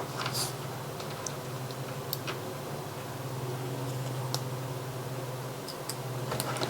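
Scattered small clicks and ticks of tiny screws, a screwdriver and a metal switch bracket being handled, over a steady low hum.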